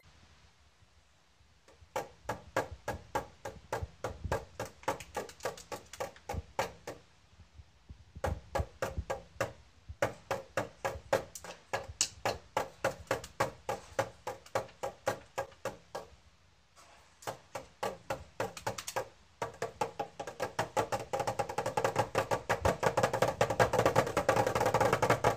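Wooden drumsticks beating a small toy snare drum in quick strokes, a few a second, broken by short pauses, then speeding up into a fast roll near the end.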